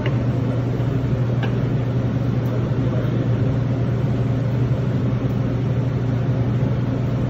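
Steady low machine hum, even and unbroken, with a couple of faint clicks near the start and about a second and a half in.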